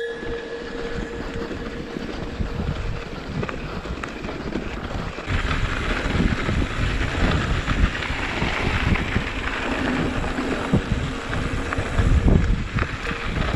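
Downhill mountain bike descending a rough trail: wind rushing over the microphone with the bike rattling and knocking over bumps, getting louder about five seconds in.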